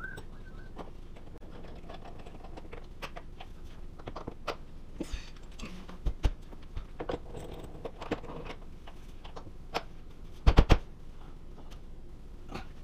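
Scattered clicks and light knocks of clamps being handled and fitted on a wooden cabinet face frame, with a quick run of louder knocks about ten seconds in.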